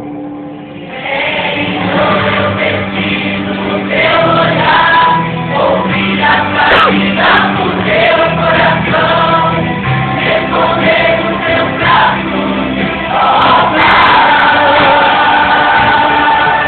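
Choir singing a gospel song with instrumental backing, coming in fully about a second in and swelling again near the end.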